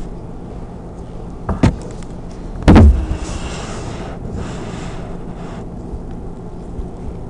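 Handling noise as a preserved mink specimen is moved and repositioned on paper towels: a knock, then one loud low thump nearly three seconds in, followed by a couple of seconds of rustling, over a steady low hum.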